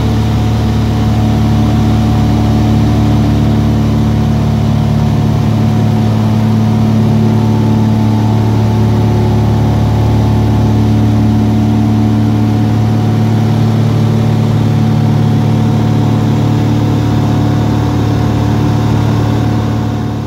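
Light single-engine propeller plane in flight, its engine and propeller making a steady drone, heard from inside the cabin through a phone held against the window. The sound fades out at the very end.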